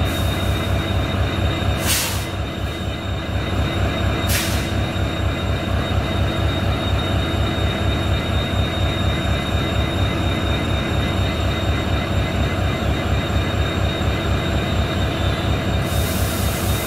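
WDG4 (EMD GT46MAC) diesel locomotive running steadily: a rhythmic low engine throb under a steady whine from the cooling fan and generator equipment. Two short hisses come about two and four seconds in, and a high hiss near the end.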